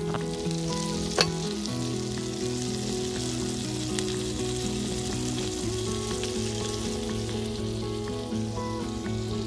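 Food sizzling steadily as it fries in a pan, with background music of sustained chords playing under it. A single sharp click sounds about a second in.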